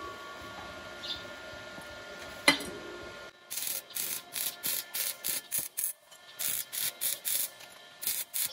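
Stick (arc) welding a steel pipe joint: the welding arc crackles in short repeated bursts, about two to three a second, starting about three seconds in. Before that, a faint steady hum and a single click.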